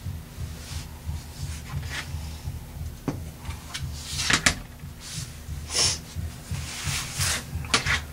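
Quilting fabric handled on a cutting mat: folded cloth slid and smoothed, a plastic ruler set down with light knocks, and a few short swishes as a rotary cutter slices strips. A low uneven pulsing runs underneath.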